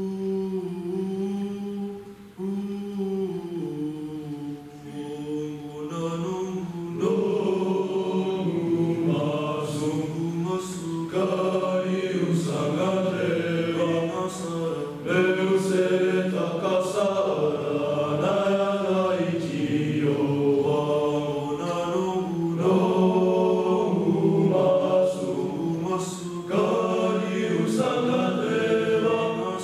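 Pasifika boys' choir singing unaccompanied in several-part harmony, opening on a long held chord, then growing fuller and louder about seven seconds in.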